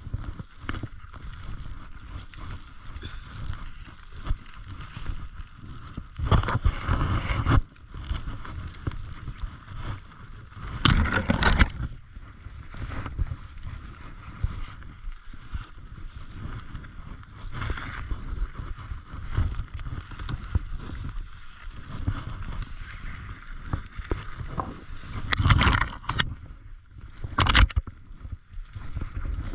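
Snowshoe footsteps crunching uphill through deep snow, with spruce branches brushing against clothing and the camera. Several louder scrapes stand out, about six seconds in, around eleven seconds, and twice near the end.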